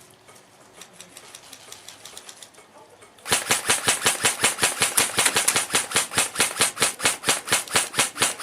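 Airsoft gun firing a steady, rapid string of sharp shots, about six or seven a second, that starts about three seconds in: suppressing fire to pin an opponent down. Before that there are only a few faint scattered shots.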